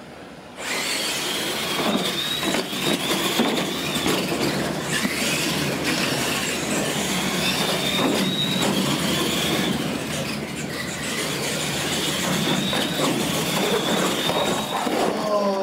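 Two R/C monster trucks racing: their electric motors and gears whine high, rising and falling with the throttle, over the rush of tires on concrete, with scattered knocks as the trucks land off jumps. The sound starts suddenly about half a second in.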